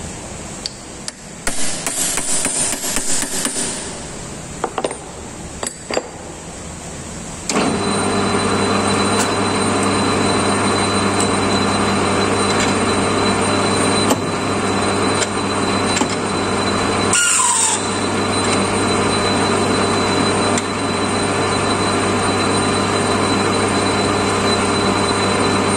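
Wooden mallet tapping the chuck key to tighten the lathe's tailstock drill chuck on a reamer, a quick run of knocks, over the hiss of heavy rain. About seven seconds in the lathe is switched on and its motor and gearing run with a steady hum while the reamer cuts.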